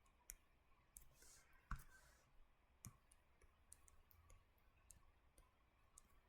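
Near silence with faint, irregular clicks, about ten of them, the loudest a little under two seconds in and near three seconds in.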